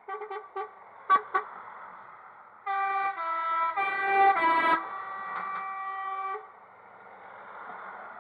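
Truck horns honking: first a quick run of short toots, then from about three seconds in a multi-note horn steps through several pitches for about three and a half seconds, like a short tune.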